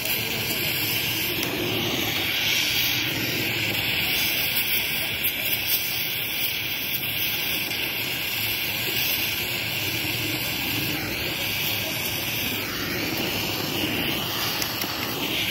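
TIG welding arc on aluminium, running as a steady hiss.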